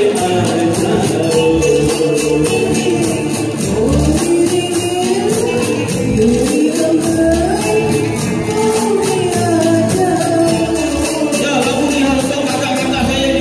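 A singer performing live through a microphone and PA, backed by a band, with a steady high percussion beat several strikes a second.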